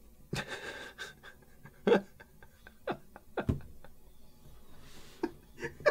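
A person's short, breathy gasps of delight, about half a dozen spread a second or so apart, the loudest near the two-second mark.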